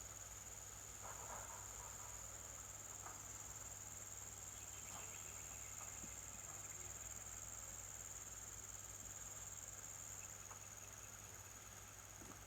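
Insects trilling steadily at a high pitch, faintly, over a low steady hum.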